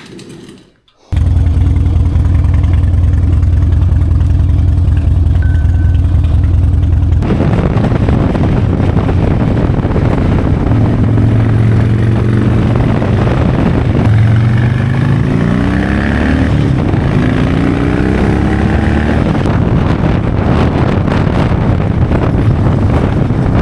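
Harley-Davidson V-twin motorcycle engine cutting in loud about a second in and running steadily, then riding on with wind rush from about seven seconds in, the engine pitch rising several times as the bike accelerates.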